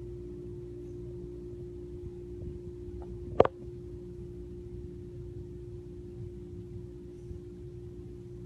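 A steady low hum with a single sharp knock about three and a half seconds in.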